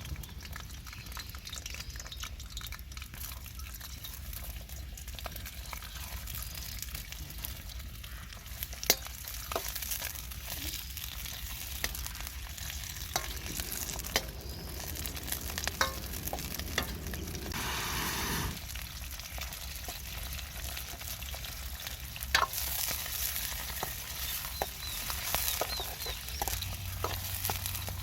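Food sizzling and frying in a Chinese carbon-steel wok while it is stir-fried, with scattered sharp clicks and scrapes of the utensil against the wok. The sizzle grows louder for several seconds around the middle, then drops off suddenly.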